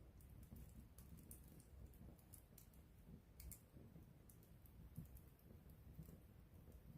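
Campfire crackling faintly: scattered, irregular snaps and pops of burning wood over a low rumble.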